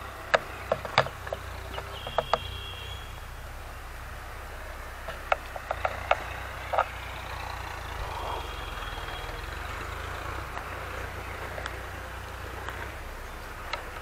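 Farm tractor engine running in the distance as a low, steady rumble, while it ploughs. Scattered sharp clicks sound in the first few seconds and again about five to seven seconds in.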